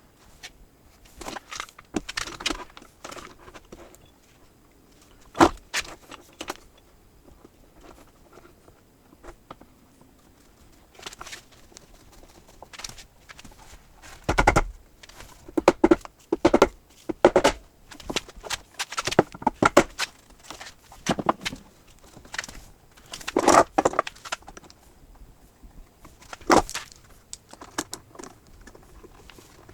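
Parallel jaw clamps and a glued board being handled and set: scattered clunks, metallic clinks and short scrapes of wood and metal, with more frequent, louder knocks in the second half.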